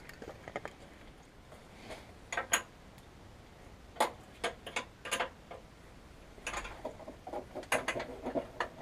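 Irregular small metallic clicks and knocks of hand tools and engine parts being handled, loudest in a few sharp taps around the middle and a busier run of clatter near the end.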